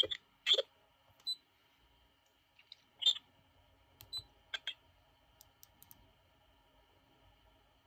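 Keypad buttons on a MEASALL KC908 handheld spectrum analyzer clicking under a finger, several sharp presses with a couple of short high blips between them. Near the end come faint quick ticks as the tuning knob is turned. A faint steady high tone runs underneath.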